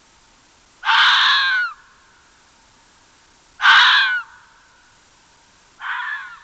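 An animal gives three harsh, raspy calls, each under a second long and about two and a half seconds apart, the last one softer.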